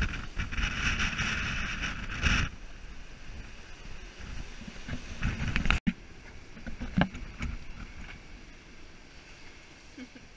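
Wind and water rushing past a sailboat under way at sea, loudest for the first couple of seconds, then quieter with a few light knocks; it breaks off abruptly about six seconds in and picks up again.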